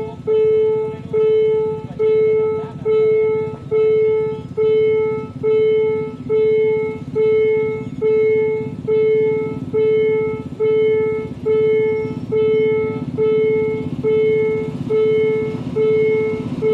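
Railway level-crossing warning bell ringing at a steady pace, a little over one ringing strike a second, signalling an approaching train with the barriers down. A low rumble underneath grows louder near the end.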